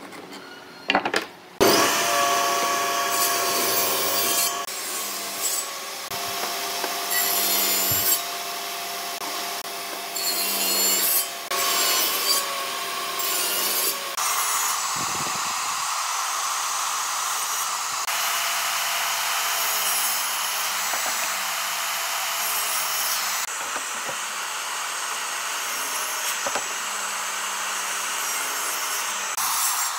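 Electric woodworking power tool running and working through wood: a steady motor tone under the cutting noise, which swells louder in several stretches during the first half. It starts about one and a half seconds in, after a couple of short knocks.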